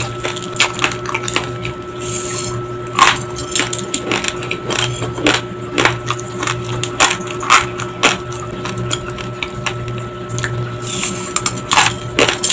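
Raw long-grain basmati rice being crunched between the teeth: rapid, irregular sharp cracks as the dry grains break. A faint steady hum runs underneath.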